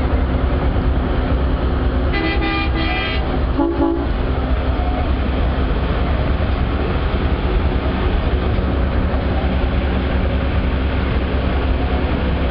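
Whitcomb diesel locomotive running steadily as it hauls the train. Its horn sounds about two seconds in for about a second, followed by a shorter, lower toot.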